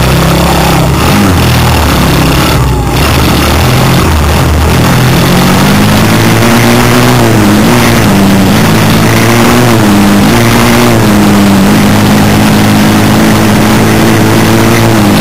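Small off-road motorbike engine running under way, recorded loud and close. Its pitch climbs about five seconds in, then dips and rises again several times as the throttle is worked.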